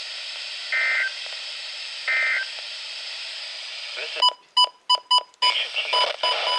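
NOAA Weather Radio broadcast over steady static hiss: two short warbling data bursts of the EAS/SAME end-of-message code, closing out the snow squall warning. About four seconds in the static cuts out and a quick run of sharp electronic beeps follows.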